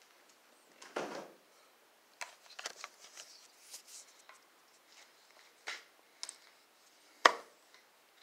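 Scattered rustling and light clicks of handling as a phone is moved close along stored mattresses. There is a soft brushing thump about a second in and a sharp knock about seven seconds in, the loudest sound.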